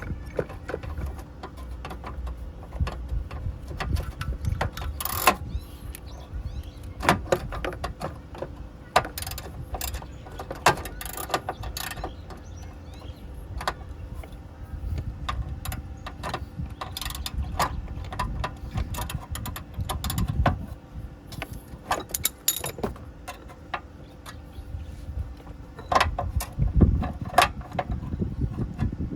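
Hand tools clinking and knocking irregularly against metal parts during work on a car's air-conditioning compressor clutch, over a steady low hum.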